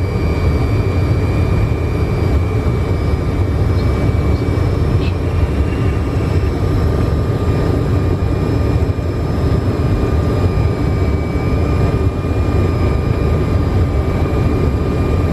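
Steady cockpit noise of a Fokker 100 airliner in flight on approach: a constant rumble of airflow and engines with a few thin, steady high whines over it.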